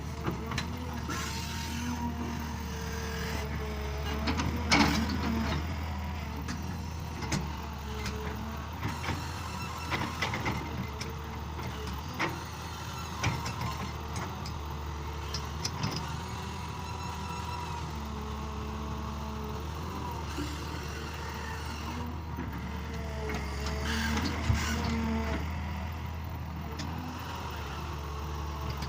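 Excavator's diesel engine running steadily under load, with a whine that shifts in pitch as the hydraulics work and occasional knocks from the bucket, the sharpest about five seconds in and near the end.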